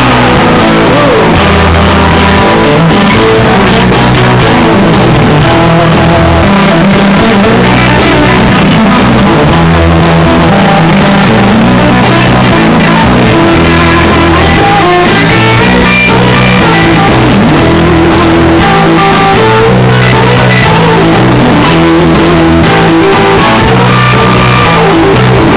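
Live rock band playing loud in an instrumental passage: a Telecaster-style electric guitar played over electric bass.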